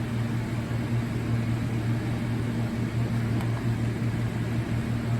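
Steady low hum over a faint hiss of background noise, with one faint click about three and a half seconds in.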